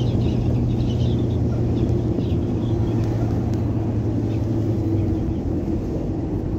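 PAZ-320302-22 bus engine running steadily under way, with road noise, heard from inside the bus cabin. Its strongest low note drops away and the level eases slightly about five seconds in.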